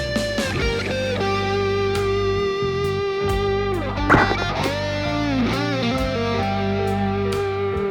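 Background music: a slow electric guitar lead playing long held notes, with a sharp note about halfway through followed by notes bent downward.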